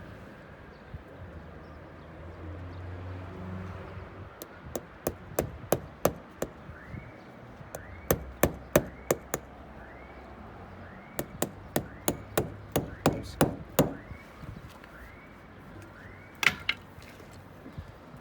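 A hammer driving in a stake, struck in quick runs of blows about three a second, three runs in all, followed by one heavier blow near the end.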